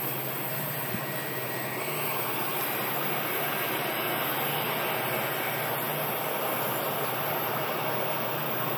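Diesel-electric locomotives of an approaching freight train running in the distance: a steady drone that grows a little louder about two seconds in.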